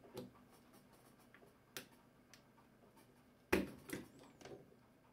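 Plastic clips of a GTX 295 graphics card's cooler cover clicking as a screwdriver pries the cover loose from the heatsink: a handful of short, sharp clicks, the loudest about three and a half seconds in.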